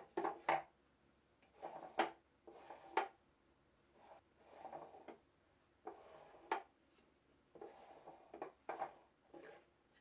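Wooden drawer sliding in and out of its case several times, each run ending in a sharp wooden knock.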